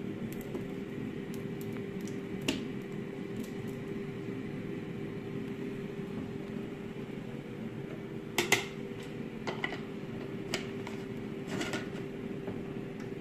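A steady hum from a kitchen appliance motor or fan, holding one constant mid-pitched tone, with a few light knocks and clinks of kitchenware. The loudest knock comes about eight and a half seconds in.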